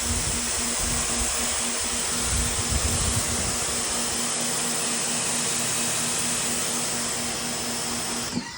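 Greenworks 1900 PSI electric pressure washer running with the trigger held: a steady motor hum under the hiss of the water jet, with some low rumble in the first few seconds. It cuts off suddenly near the end as the trigger is let go, since the pump runs only while the trigger is pulled.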